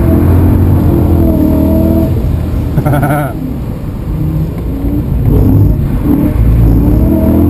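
BMW E92 M3's V8 running at high revs while the car drifts, heard from inside the cabin; the revs and level drop briefly about three seconds in, then climb again.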